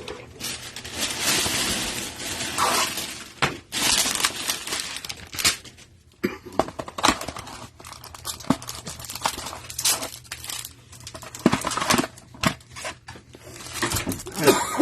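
Trading-card hanger box being torn open by hand, with irregular crinkling and rustling of the packaging and sharp snaps and clicks.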